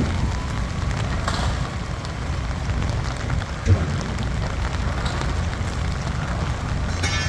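Engine of a Nippon Sharyo DH408-95M pile driver running steadily as a low, rough rumble, with a single sharp knock about halfway through.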